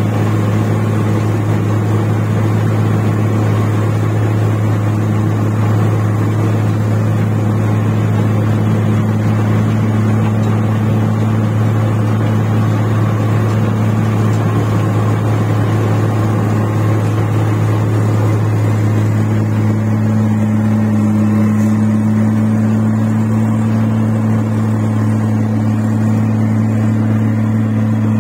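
Rice combine harvester's engine and threshing machinery running steadily as it cuts through a muddy paddy field: a continuous low drone, with one tone in it growing stronger about two-thirds of the way through.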